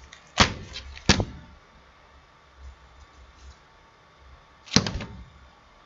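Computer mouse clicking: single sharp clicks about half a second and about a second in, then a quick double click near the end.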